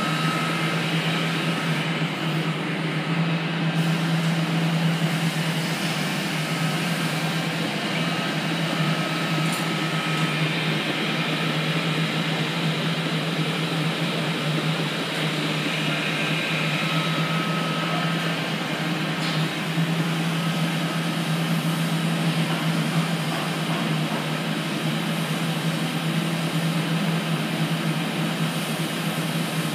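BN5-12 progressive cavity pump and its drive motor running steadily at about 300 RPM, pumping thick 4000 cSt HiTEC oil, with a constant low hum.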